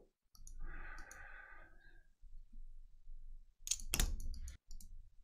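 Faint clicking, with a soft hissy sound about a second in and a quick, dense run of sharp clicks about four seconds in.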